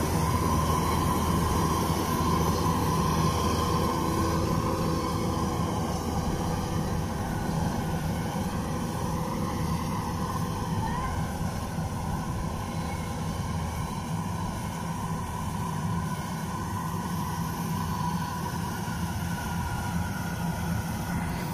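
Kubota DC-93 combine harvester's diesel engine and threshing gear running steadily under load as it harvests rice, growing slightly fainter as it pulls away.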